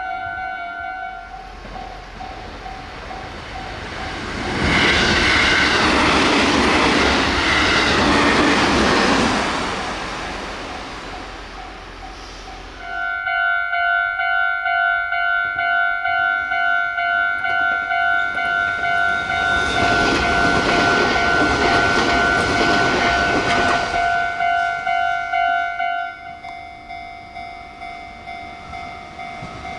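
A Japanese level-crossing warning bell rings a steady, repeating two-tone ding, about twice a second. A train rushes past at high speed about 4 seconds in, and a second one passes about 20 seconds in. The bell stops about 26 seconds in, once the crossing clears.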